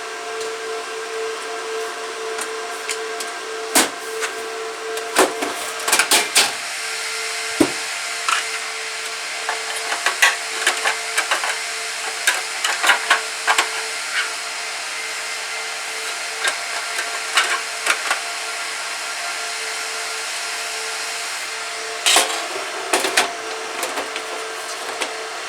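Gigabyte R180-F34 server's cooling fans running at low speed with a dull, steady hum and a held whine, over scattered clicks and knocks as the air ducts are fitted back into the open chassis. The knocks come in two clusters, the busiest in the first half and a shorter run near the end.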